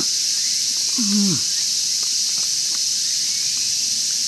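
Steady high-pitched drone of insects in the forest, with a man's short falling "mm" while chewing about a second in.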